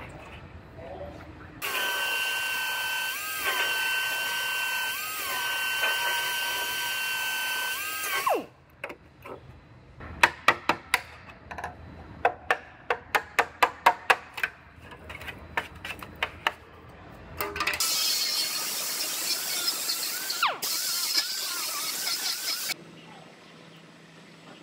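A power tool cutting the sheet-metal rocker panel runs for about six seconds in a steady high whine that sags briefly three times under load. Then come a string of sharp metal taps and clicks, and then a second stretch of high-pitched tool noise that cuts off abruptly.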